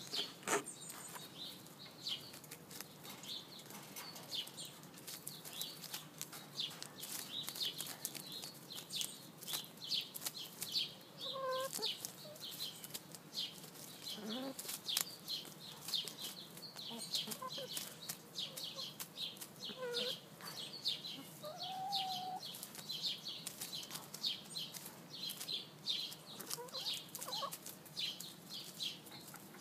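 Backyard hens pecking at spinach leaves on straw bedding: a steady run of sharp beak-peck clicks and rustling, with a few soft, brief clucks.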